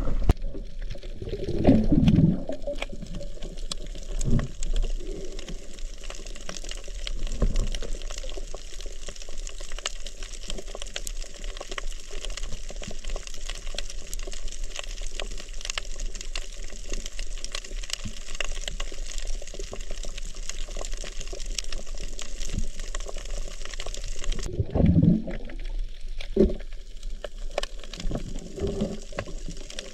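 Underwater reef ambience picked up by a camera at night: a steady crackling hiss full of fine clicks, with several low rushes of water moving past the housing, the loudest about two seconds in and again near the end.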